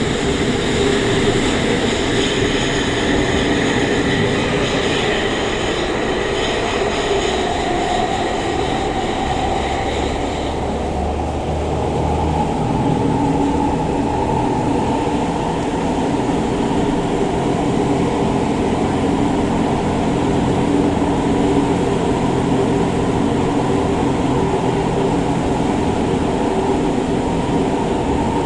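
SMRT C651 metro train heard from inside the car while running, with high whining tones that cut off about ten seconds in, then steady running noise with a lower hum.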